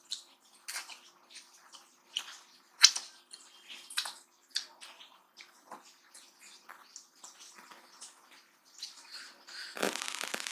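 Close-miked eating sounds of someone eating rice with chana dal and mutton by hand: wet chewing and lip smacks, with soft squelches of fingers in the rice. A dense crackle starts just before the end.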